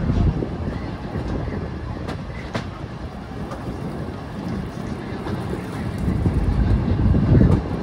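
Passenger train rolling into a station: a low rumble of wheels and carriages with a couple of sharp clicks over the rail joints, growing louder near the end.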